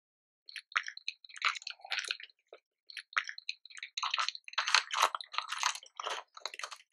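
A straw pushing and working down into thick milk froth on a glass of matcha latte: irregular squishy, crackling foam noises in short bursts, coming thicker in the second half.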